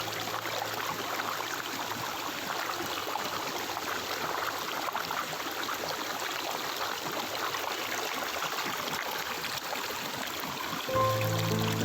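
Flowing stream water, a steady rush and trickle. A low held musical drone fades out in the first couple of seconds, and music with held notes comes back in about a second before the end.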